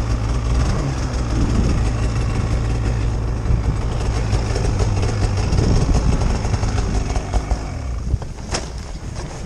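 Polaris Pro-RMK 800 snowmobile's two-stroke twin engine running hard as the sled sidehills and tips over in deep snow; the engine sound falls away about three quarters of the way through as the sled lies on its side, with a sharp knock near the end.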